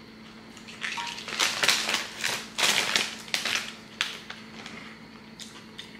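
Crunching of Doritos tortilla chips being chewed close to the microphone: a dense run of crunches in the first few seconds, then a few fainter ones.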